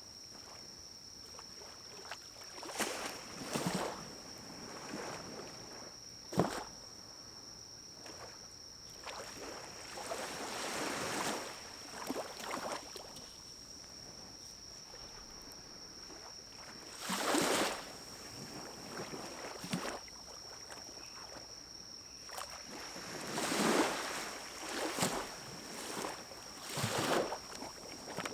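Pine cones burning in a small wood-burning stove: a run of short whooshing rushes of flame, each about a second long, and one sharp pop, over a steady high faint whine.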